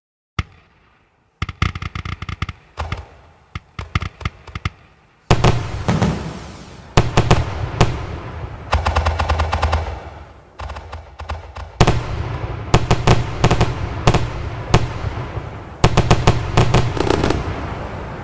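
Fireworks going off: quick strings of sharp crackling bangs at first, then, from about five seconds in, heavier booms with a low rumble under dense crackling. The sound fades away near the end.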